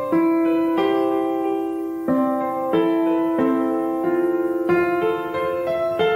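Background piano music: a slow, gentle melody of held notes and chords, a new note struck every half second to second.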